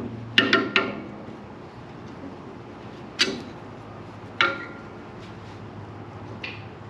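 Hand tools clinking against the metal of a sawmill head while a drive belt is worked onto its pulley: three sharp ringing clinks in quick succession just after the start, single ones about three and four and a half seconds in, and a lighter one near the end.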